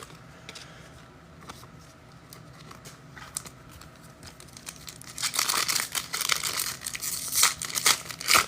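A trading-card pack wrapper being torn open and crinkled in the hands. It starts about five seconds in after a few small handling ticks, and grows loud near the end.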